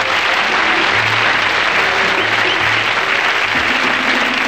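Studio audience applauding over music with a bass line.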